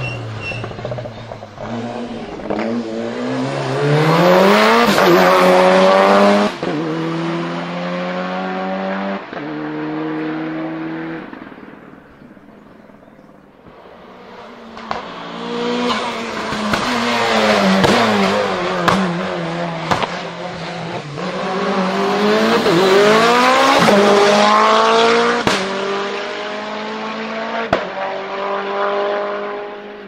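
Two hillclimb race cars, one after the other, accelerating hard up the course. Each engine revs up through the gears, its pitch climbing and dropping back at each quick upshift, with sharp cracks at some of the shifts. There is a brief quieter gap between the two cars.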